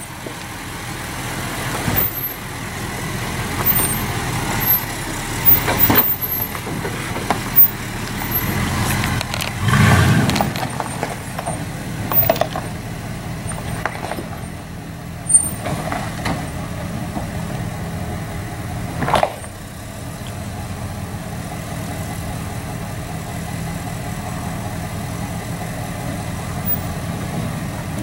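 Dodge Ram 2500 pickup's Hemi V8 running at low speed while it crawls over rocks, with scattered sharp knocks and thumps and one heavier low surge about ten seconds in. It settles to steady low running over the last several seconds.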